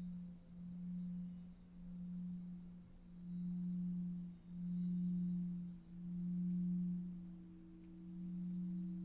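A low, sustained meditation drone tone that swells and fades about every second and a half. A second, higher steady tone joins it a few seconds in.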